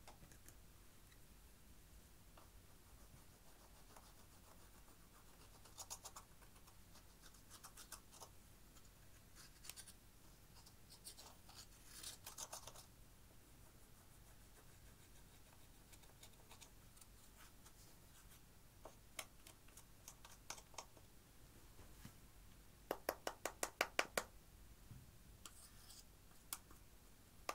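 A thin tool scraping and crumbling pressed powder eyeshadow out of a palette pan, in short scratchy strokes with pauses between. Near the end comes a quick run of about ten sharp taps.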